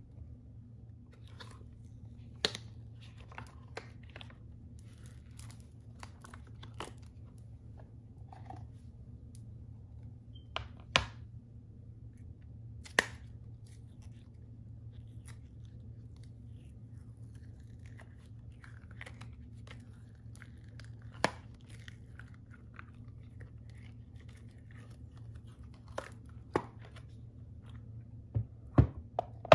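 Cured resin pieces being peeled out of a silicone mold: soft peeling and rubbing of the flexible silicone, with a handful of sharp clicks of hard resin knocking on the resin tray, several close together near the end. A low steady hum lies underneath.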